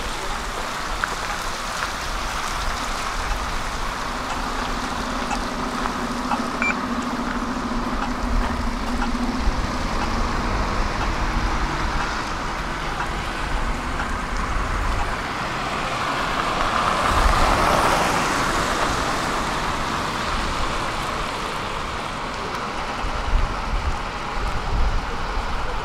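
Road traffic: a steady wash of vehicle noise. One vehicle passes by, loudest about 17 to 18 seconds in, and a low steady hum sounds from about 4 to 10 seconds in.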